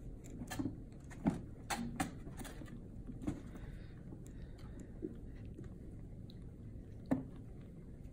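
Light knocks and soft thumps from kittens tussling in a small plastic toy wrestling ring, bumping its posts and string ropes, over steady low background noise. The knocks cluster in the first few seconds; the sharpest comes about a second in, and another near the end.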